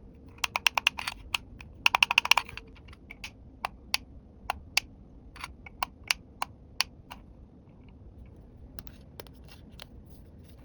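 Small plastic toy pieces being handled, clicking and tapping against each other. There is a quick flurry of clicks in the first two and a half seconds, then single clicks about every half second until about seven seconds in, and a few more near the end.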